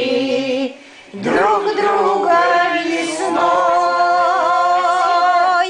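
Men and women singing together, finishing the song: a short break about a second in, then the voices rise into one long held final note that stops at the end.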